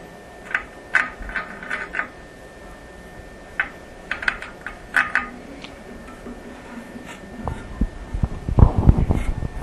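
Hand tools clinking sharply against the toilet tank's metal bolts and fittings in two short clusters, then a run of low bumps and rumbling as the parts are handled, near the end.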